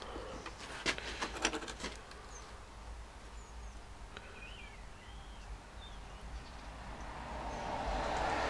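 A quick run of light clicks and taps about a second in, from hands and tools working at the vice-held starter solenoid during soldering. Later, over a low workshop hum, come a few faint bird chirps.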